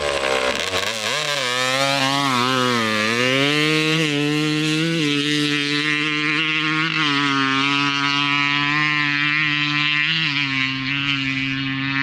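Husqvarna dirt bike engine pulling away under a rider, its note dipping and rising over the first few seconds, then holding a steady pitch. It sounds gradually more distant as it loses its top end.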